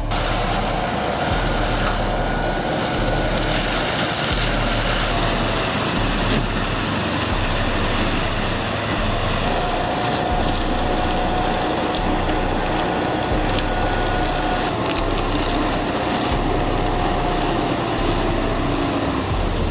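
A heavy machine running: a loud, steady engine and mechanical noise, with a low rumble that swells and drops every couple of seconds.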